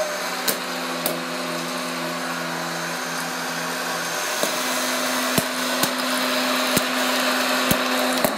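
Aicok hot-air popcorn maker running: its fan blows with a steady hum, and scattered sharp pops come from kernels popping.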